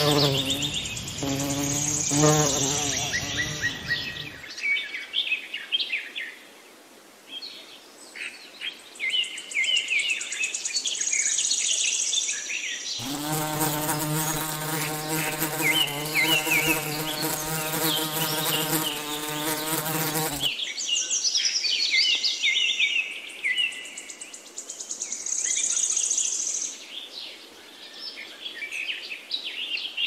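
A bee buzzing close by: a steady hum for the first four seconds or so, then again for about seven seconds in the middle, starting and stopping abruptly. Many small birds chirp high and quick throughout.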